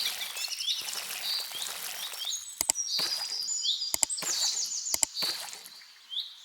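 Small songbirds chirping and trilling over a light outdoor background noise, with a few sharp clicks in the middle.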